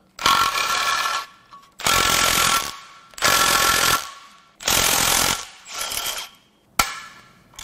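Cordless impact wrench hammering in about five short bursts, each under a second, with a brief click and burst near the end: backing out the perimeter bolts along the N14 engine's cylinder head one after another.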